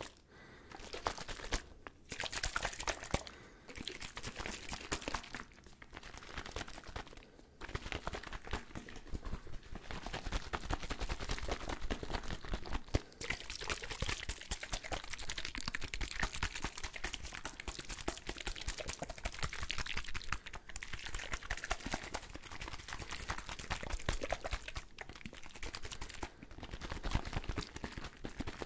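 A container of liquid being shaken and tapped, the liquid sloshing under quick, dense tapping. It comes in short bouts with brief pauses over the first several seconds, then runs on without a break.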